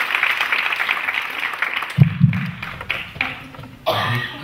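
Audience applauding. The dense clapping breaks off about halfway through with a sudden low thump and thins to a few scattered claps.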